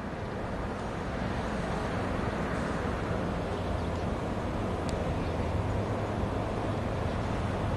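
KiwiRail DL-class diesel-electric locomotives approaching at the head of a freight train, their engines giving a steady low drone that grows gradually louder.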